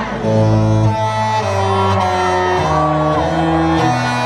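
Cruise ship's musical horn sounding a slow tune of long held notes, its pitch stepping from note to note every half second to a second.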